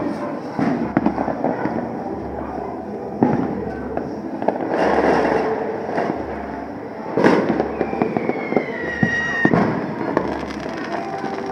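Fireworks going off: repeated sharp bangs and crackling, with a falling whistle about eight seconds in.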